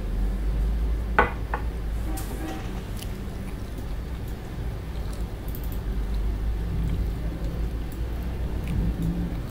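Steady low hum of room or microphone noise, with two sharp clicks close together about a second in and a few faint ticks after.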